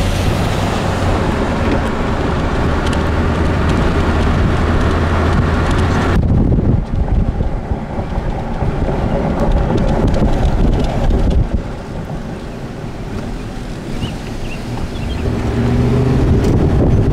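Road noise and a steady engine drone inside a moving car. About six seconds in, it cuts to strong, gusty wind buffeting the microphone outdoors.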